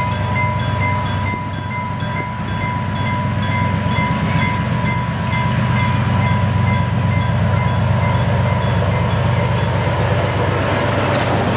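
Sri Lanka Railways Class W1 diesel locomotive approaching and passing, its low engine rumble growing louder about halfway through. Over it, the level-crossing warning signal rings about three strikes a second with a steady high tone, the strikes fading out midway.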